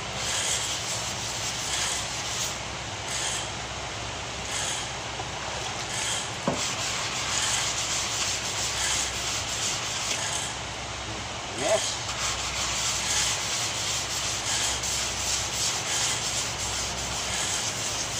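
Sandpaper on a sanding block being worked by hand back and forth over a wet car fender, in steady repeated strokes. Two short squeaks come partway through.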